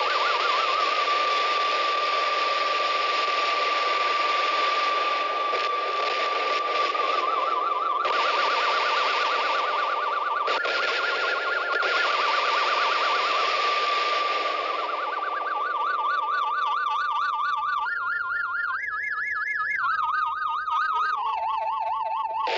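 Electronic noise piece: a dense hiss under a steady high tone that now and then wobbles rapidly like a siren. In the last few seconds the hiss thins out while the tone jumps between pitches and ends lower.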